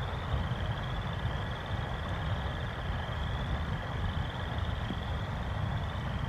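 Steady thunderstorm rain and wind noise on the nest camera's microphone, a low rumble with a hiss above it. A faint high trilling call repeats about once a second behind it.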